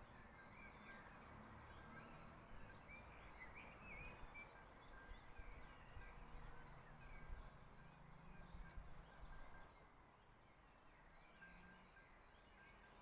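Faint songbird chirps, scattered short calls that are busiest a few seconds in, over a quiet low rumble of outdoor ambience.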